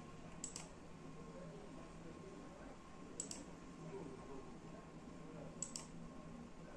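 Three sharp double clicks, each a quick press and release of a button or key, about two and a half seconds apart, over a faint steady hum.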